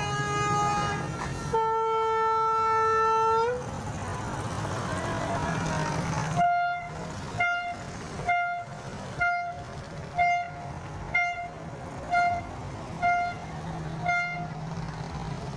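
Horn sounds: a long held blast that bends up in pitch as it ends, then a run of about nine short toots at a steady pace of roughly one a second.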